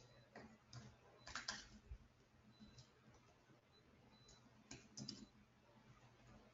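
Very faint computer keyboard typing: scattered short keystroke clicks, a small cluster about a second and a half in and another about five seconds in.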